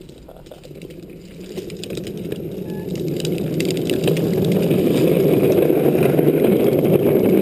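Rushing wind and tyre noise on a wet road, growing steadily louder as speed builds.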